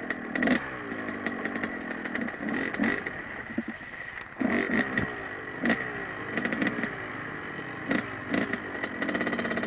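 Dirt bike engines revving up and down again and again as the bikes ride the trail, with sharp clicks now and then.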